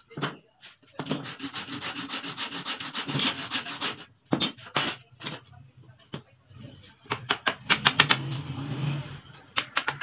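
A hand tool rasping quickly over wood for about three seconds, then several sharp taps and clinks of metal tools, and more rasping toward the end.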